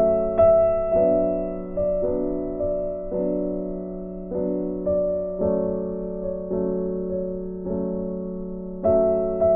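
Background piano music: notes and chords struck about once a second, each fading away over a steady low held tone.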